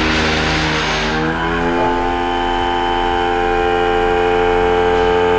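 Vaquform desktop vacuum former's vacuum motor running as the heated plastic sheet is drawn down over the mold. A rush of air with a humming tone fades out over the first two seconds while the tone rises slightly in pitch, then settles into a steady whine.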